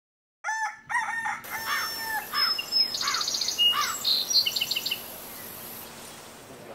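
A rooster crows near the start, followed by small birds chirping and trilling for a few seconds.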